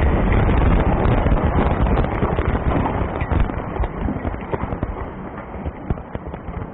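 A concrete arch bridge's debris falling and settling after explosive demolition: a loud rumble with many sharp knocks of pieces landing, fading gradually.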